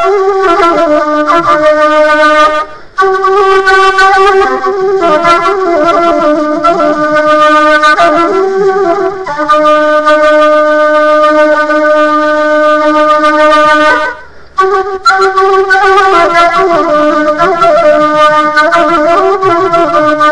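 Music: a reedy wind instrument playing a slow melody of long held notes, breaking off briefly twice.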